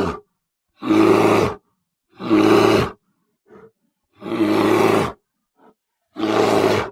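Bear roaring in a series of separate roars, each under a second long, coming about every second and a half, with two short faint grunts between them.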